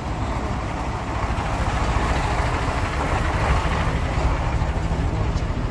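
An engine running steadily: a continuous low drone with a slight regular pulse.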